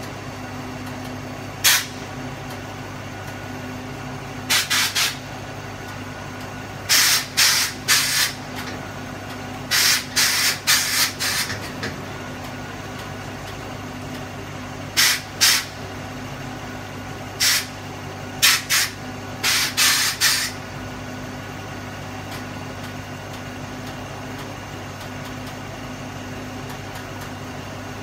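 Air-ride suspension valves hissing in short, sharp bursts, about a dozen in quick clusters, as the switches are flicked to let air into and out of the bags. Underneath, the bus's Ford FE big-block V8 idles steadily.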